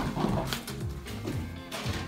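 Background music with steady low tones and a repeating pattern, and a short knock right at the start.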